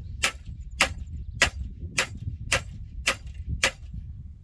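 Hammer blows on the steel of a John Deere 250 disc tiller, seven sharp, evenly spaced strikes about two a second, stopping near the end, over a low rumble.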